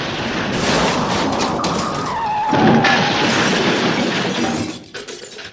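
Pile-up of car crash sounds: a dense, continuous mix of crunching metal and shattering glass with a brief tyre screech about two seconds in. It fades out near the end, leaving a few scattered tinkles of debris.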